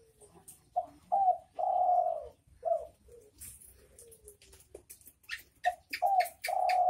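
Spotted dove cooing in two phrases, each a couple of short coos, then one longer drawn-out coo and a short one; the second phrase starts about two-thirds of the way in. A quick run of sharp ticks comes with the second phrase.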